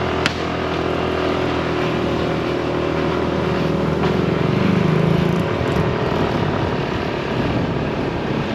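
Small motorcycle engine running with a rider and passenger aboard, pulling away with its pitch rising as it speeds up, then a rushing wind noise as it rides on. A short sharp click sounds just after the start.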